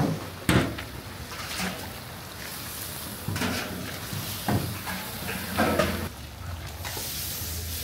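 Several separate knocks and clanks of metal cooking pots and ladles over a steady background noise; the sharpest comes about half a second in.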